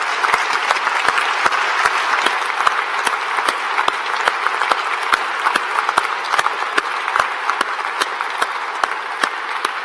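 Large audience applauding steadily, with a few sharper claps close by, slowly easing off toward the end.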